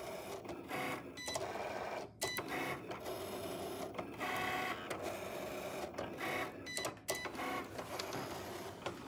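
Cricut Explore Air 2 cutting machine cutting chipboard parts: its motors whirr as the blade carriage and mat move in short runs, changing pitch with each move and stopping briefly now and then.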